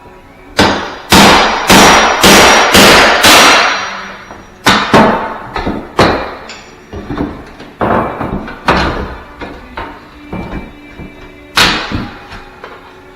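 Hammer blows, likely driving a pry bar behind door trim to work it loose: a quick run of six sharp strikes about half a second apart, then slower, scattered knocks.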